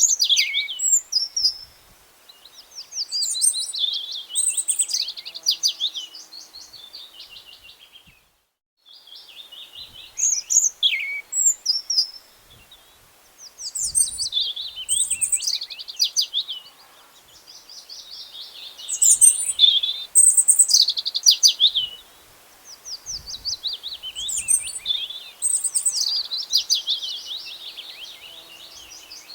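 Songbirds singing: phrases of quick, high chirps and trills a few seconds long, with short pauses between. The sound cuts out completely for a moment about eight seconds in.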